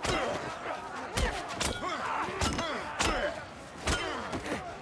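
Brawl sounds: a crowd of men shouting and yelling while heavy punches and body blows land, six or so sharp hits about half a second to a second apart.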